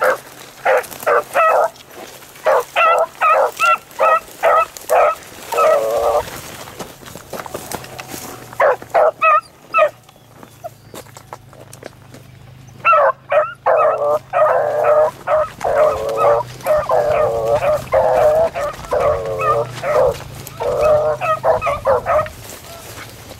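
Beagles baying while trailing a rabbit: quick strings of short chop barks, two short pauses, then longer drawn-out bawls through the second half.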